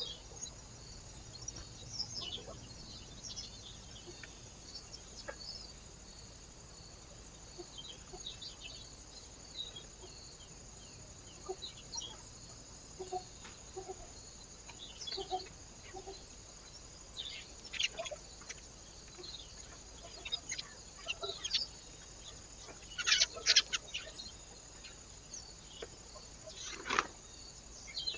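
Birds calling: scattered short chirps and sharper calls, louder and more frequent near the end.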